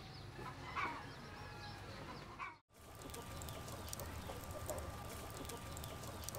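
Chickens clucking, with small birds chirping high up. The sound cuts out briefly about two and a half seconds in, then the clucking goes on with a thin steady tone and small clicks.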